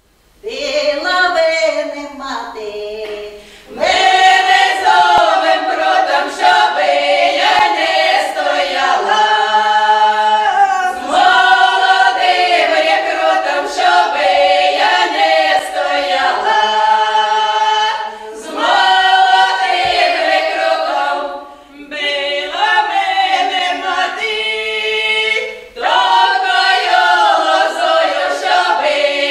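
Women's folk ensemble singing a cappella in the South Russian village style of the Belgorod region. The song opens more quietly, the full group comes in about four seconds in, and short breaks fall between the phrases.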